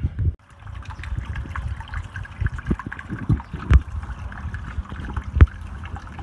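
Water from a garden hose running into an inflatable kiddie pool, trickling and splashing as the pool fills, with a few low thumps, two louder ones about the middle and near the end.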